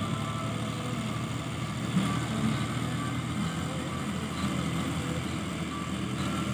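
Tractor diesel engine running steadily under load as it drags a rear levelling blade through loose soil.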